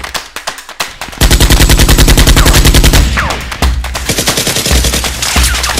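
Dubbed automatic-gunfire sound effect: a few single shots, then a rapid, sustained burst of about two seconds starting a second in, then scattered shots again.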